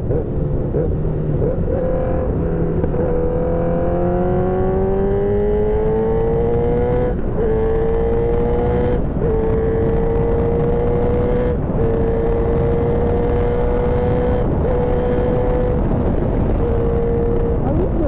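Motorcycle engine under way. From about three seconds in its note climbs as it pulls, then it shifts up through the gears: several short breaks in the note, each followed by a slow rise. Steady wind rush and road noise lie underneath.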